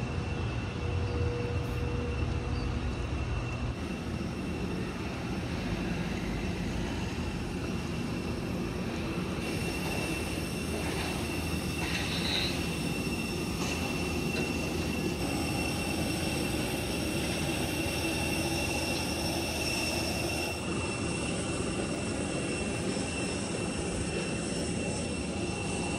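Steady whine and rumble of a parked jet airliner on the apron, with a constant high tone over a low noise.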